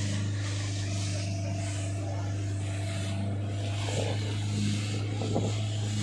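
Speedboat engine running at a steady pitch at speed, with water and wind rushing past the hull.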